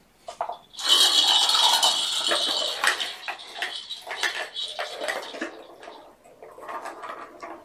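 Plastic ball-track cat toy being lifted and tilted, its balls rattling and clattering around the tracks for several seconds from about a second in, followed by lighter knocks as toys are shifted on the blanket.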